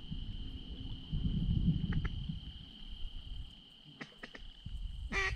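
A steady high insect trill, like crickets, over a low wind rumble on the microphone. Near the end a quick run of loud duck quacks starts, with a few fainter quacks before it.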